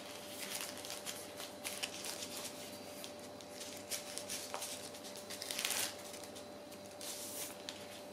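Plastic film and paper backing of a screen protector rustling and crinkling as it is handled and flexed. It comes in short scraping clusters, loudest about six and seven seconds in.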